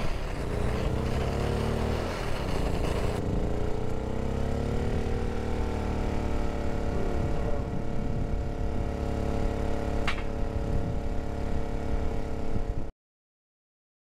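Handheld propane torch hissing as it heats a graphite mold, shutting off about three seconds in. Wind buffets the microphone over a steady hum, with one sharp click near ten seconds, and the sound cuts off abruptly near the end.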